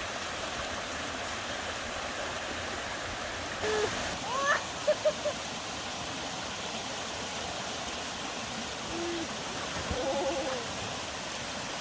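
Mountain stream water rushing steadily, with a few short pitched calls about four seconds in and again near ten seconds.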